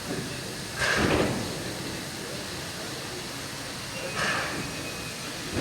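Steady hiss from the standing steam locomotive 3801, with short snatches of voices about a second in and again near the end.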